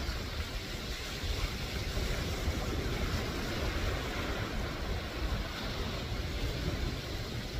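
Surf breaking on a rocky shore, with wind noise on the microphone.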